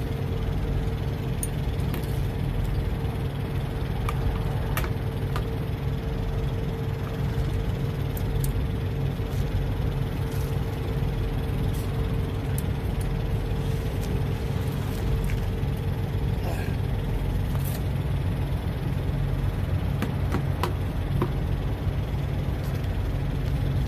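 Steady low hum of an idling semi-truck diesel engine, with a higher steady tone that drops out about 17 seconds in. Scattered light metallic clicks as bungee hooks are fastened onto tire chain links.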